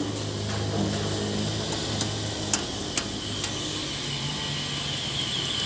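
Steady low hum with a faint hiss, with a few faint light clicks scattered through it.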